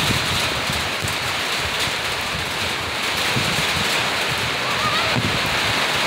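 Steady rain falling, with some gusty wind rumble on the microphone.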